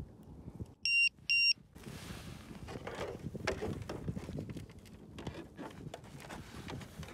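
Two short, identical electronic beeps about a second in, followed by rustling and small clicks of hands fitting a LiPo battery and its wires into the plastic fuselage of a model airplane.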